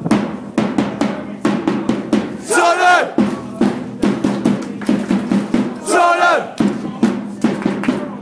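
A hand-carried drum beaten in a quick rhythm while a crowd of football supporters chants, with a loud sung shout from the crowd twice, a few seconds apart.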